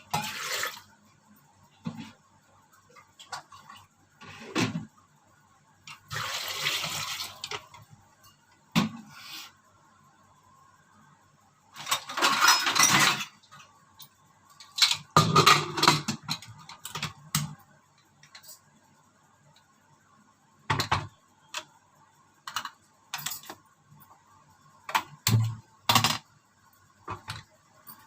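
Kitchen tap water running into a pot in a few short spells, with knocks and clinks of utensils in between, as potatoes are readied for boiling.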